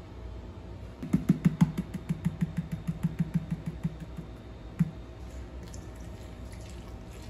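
Rapid light tapping, about six to seven taps a second for some three seconds, then one more tap, as powdered baking ingredients are knocked from a measuring scoop into a stainless steel mixer bowl. Near the end, a faint pour of liquid into the bowl.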